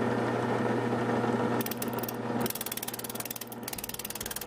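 Drill press running with a wire brush wheel in its chuck: a steady motor hum, and the brush's rapid scratching rattle. The rattle comes and goes as a coated foam test sample is held against the brush and ground away in an abrasion test, starting about a second and a half in.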